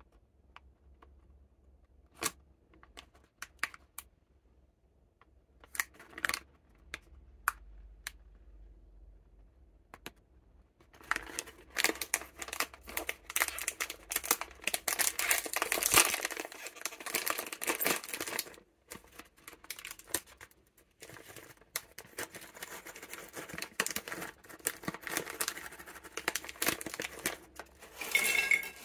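A plastic snack bag crinkles now and then in the hands, then is torn open, with a long run of tearing and crinkling from about a third of the way in. Near the end there is a brief clink as the first biscuits slide out onto a ceramic plate.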